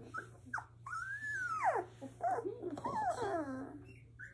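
Black Labrador puppies, 17 days old, whining and squealing: a couple of short squeaks, then a long cry that arches up and falls steeply, then several wavering whines that drop in pitch.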